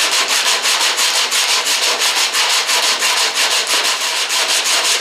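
Hand block-sanding of hardened Bondo body filler on a car's quarter panel with coarse 36-grit paper: a steady run of quick, even scratching strokes. This is the feathering stage, blending the filler's edge out into the panel.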